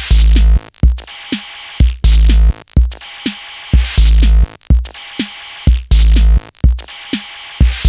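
Electronic dance music with a drum-machine beat: heavy, repeated deep bass hits, with short notes falling in pitch between them.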